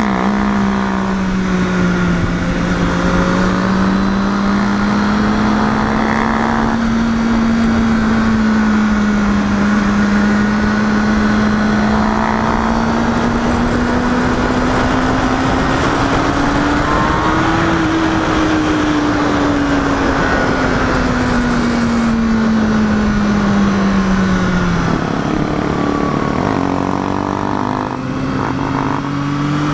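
Sport motorcycle engine running at cruising speed, with wind rushing past. The engine note climbs slowly, then falls away, and near the end it drops and changes as the throttle comes off.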